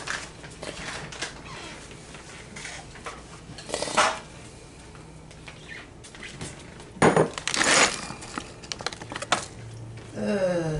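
Kitchen utensils and dishes clinking and knocking on a countertop, with a sharp knock about four seconds in and two louder clatters about three seconds later.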